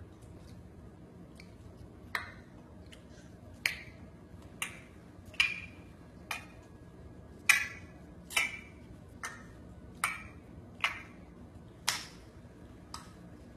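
About a dozen short, sharp, sticky smacks at uneven intervals, starting about two seconds in: a baby's chocolate-covered hands slapping and scooping in a jar of chocolate spread.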